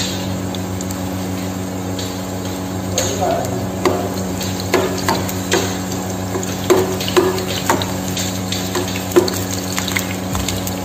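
Oil sizzling around sliced ginger in a nonstick frying pan. From about four to nine seconds in, a metal spoon scrapes and knocks against the pan several times as the slices are stirred.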